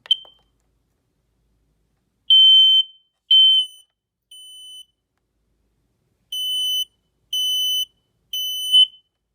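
Smoke alarm sounding its test in the three-beep temporal pattern, the standard smoke-evacuation signal: a short click at the start, then two groups of three high-pitched half-second beeps about a second apart, with a pause between the groups. The third beep of the first group is much fainter.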